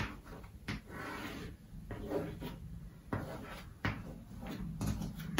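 Chalk tapping and scratching on a chalkboard as digits are written: several short, irregular taps with soft scraping between them.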